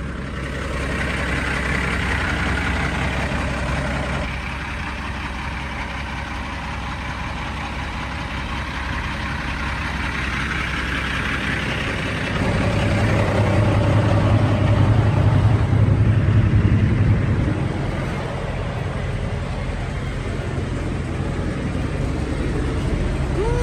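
Diesel semi-truck engine idling at the fuel pump during fueling, with a steady hiss over it. A louder low rumble swells about halfway through and eases off several seconds later.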